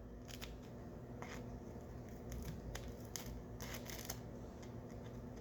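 Scissors snipping through baked dog-treat dough, about eight faint, irregularly spaced cuts.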